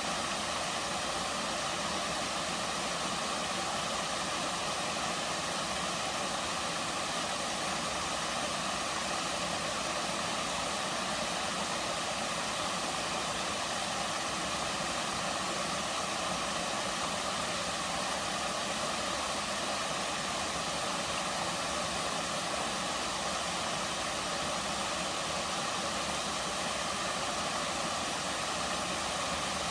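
Water from a gentle waterfall pouring steadily into its pools, making an even rushing hiss that does not change.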